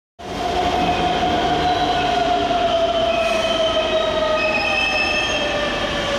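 Keikyu 600 series electric train slowing into a subway platform: running noise with an electric whine that falls slowly in pitch as it brakes, over fainter higher tones.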